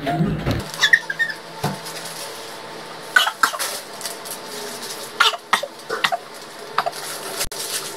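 Edited-in music cuts off at the start. Then come a woman's short, scattered coughs and throat noises and tissue rustling as she clears a mouthful of marshmallows into a tissue.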